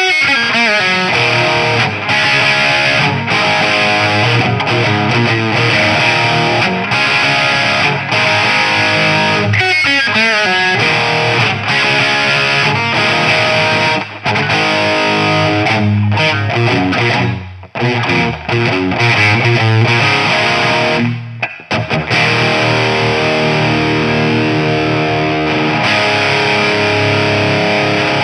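Distorted electric guitar played through a DIY-built Mojotone British 800 kit, a JCM 800-style tube amp, with a continuous stretch of riffing and two brief pauses in the second half.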